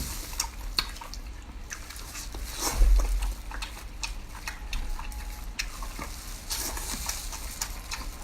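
Close-miked eating sounds: wet chewing, lip smacks and short clicks from a mouthful of food, with a denser, louder burst of chewing about three seconds in.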